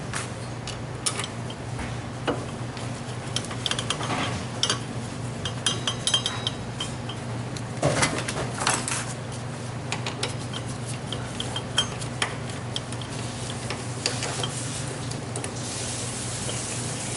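Scattered light metallic clinks and clicks of tools and brake caliper parts being handled and fitted while a scooter's disc brake caliper is put back together, over a steady low hum.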